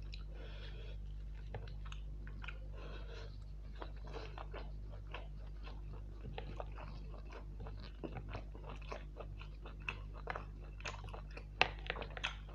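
Close-miked chewing of mutton curry and rice: wet mouth smacks and clicks, some crunchy bites, coming faster and louder in the second half. A steady low hum sits underneath.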